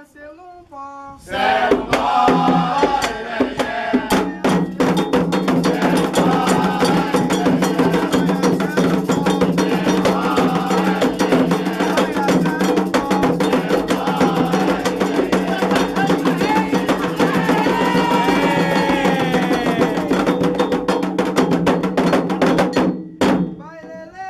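Candomblé ritual music: an iron bell beating a rhythm over hand drums, with voices singing. It starts about a second in and stops abruptly near the end.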